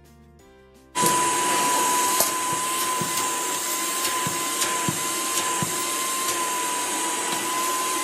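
Soft background music, then about a second in an American Micronic wet-and-dry canister vacuum cleaner switches on and runs steadily: a loud, even rush of air with a steady whine, played at double speed.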